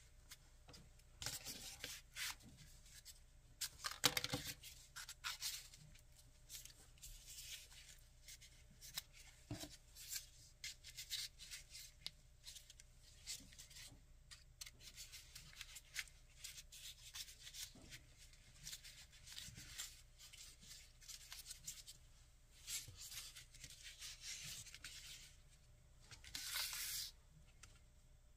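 Folded paper pieces of a 3D origami swan rustling and rubbing against each other in the hands, in short scratchy strokes that come and go, loudest about four seconds in and again near the end.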